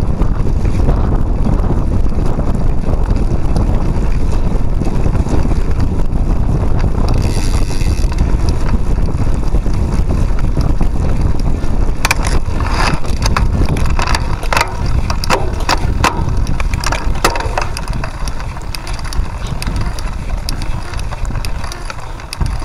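Cyclocross bike ridden hard over a dirt trail: wind buffets the handlebar-mounted microphone over a steady low rumble of tyres on rough ground. About halfway through comes a run of sharp rattling clicks and knocks from the bike jolting over bumps, and the rumble eases a little near the end.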